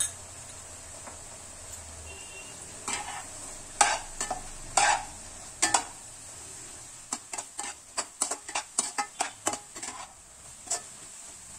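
Perforated metal spatula scraping and knocking against a non-stick kadai while stirring a frying egg mixture, over a steady sizzle. A few separate strokes at first, then a quick run of about three strokes a second from about seven seconds in.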